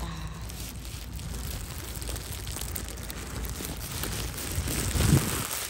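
Wind buffeting the microphone outdoors, a steady low rumble under a noisy hiss, with a stronger gust about five seconds in.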